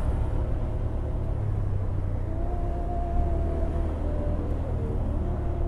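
Motorcycle riding along in traffic: its engine running steadily under a low wind rumble on the helmet-mounted microphone, with a faint steady whine from about two seconds in.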